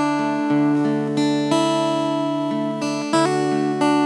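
Acoustic guitar played solo: plucked chords that ring out and fade, with a new chord struck about every half second to a second.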